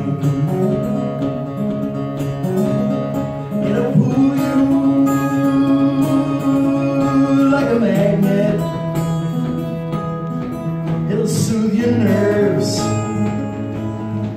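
A man singing solo to his own strummed acoustic guitar, live and unamplified-sounding, with long held vocal notes, one lasting about four seconds in the middle.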